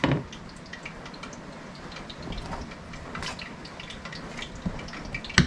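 Hand mixing sliced potatoes and onions into gram-flour batter in an aluminium foil tray: the vegetables and batter rustle against the foil. There is a sharp knock at the start and another just before the end.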